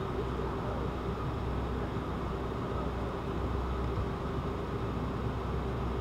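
Steady drone of an idling vehicle engine, a constant hum over a low rumble.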